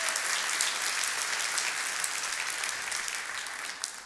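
Audience applauding: many hands clapping in a dense, even patter that fades away near the end.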